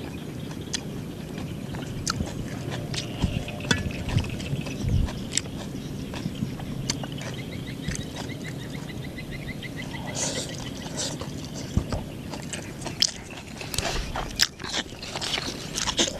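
Close-up chewing and biting of a mouthful of Khmer crepe (banh chheo) with fresh greens, with wet mouth clicks and lip smacks throughout, growing denser near the end.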